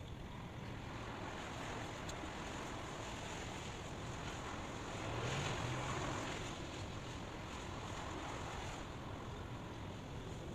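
Steady rushing white noise that swells briefly about halfway through.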